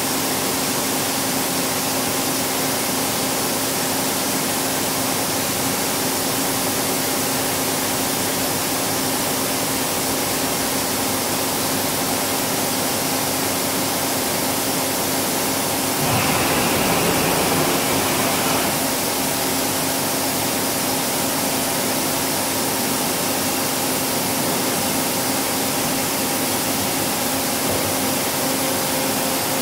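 Niigata HN-80C horizontal machining center running, a steady hum and hiss with several held tones. About halfway through, a louder rushing sound lasts a couple of seconds, then the steady hum carries on.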